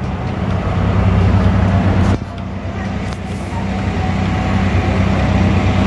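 A steady low engine-like drone with a constant hum, briefly dipping with a click about two seconds in.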